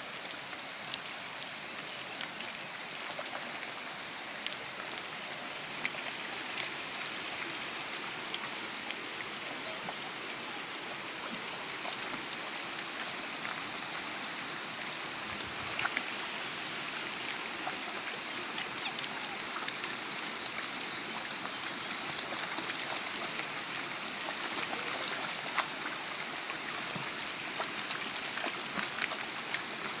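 Shallow stream running steadily over stones, with scattered small splashes as puppies wade and paddle through the water, more of them near the end.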